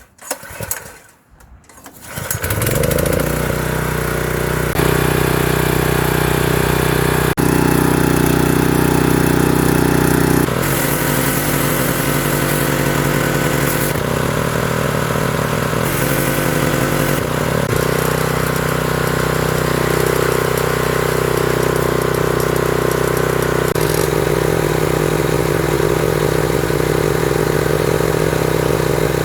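Gas pressure washer's small engine catching about two seconds in and then running steadily, with its pitch and level shifting several times as it runs.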